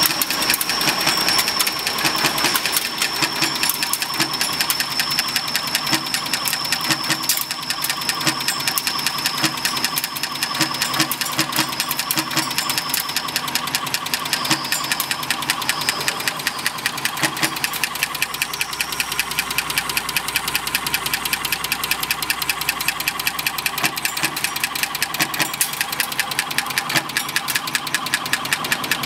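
Automatic fastener-forming machine running continuously at speed: a rapid, even mechanical clatter as its rams and pusher arm cycle. A steady high whine is heard through the first half and fades out.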